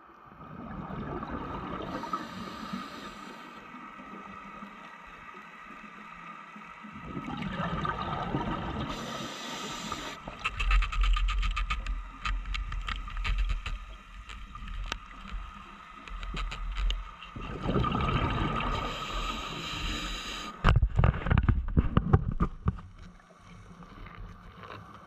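Scuba diver's breathing heard underwater: a burst of exhaled regulator bubbles about every eight seconds over a steady underwater wash. Scattered crackling clicks between breaths and a run of knocks near the end as the diver grabs a lobster from a reef hole.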